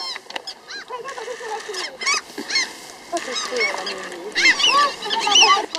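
A flock of gulls calling overhead: many harsh, pitched calls overlapping one after another, densest near the end.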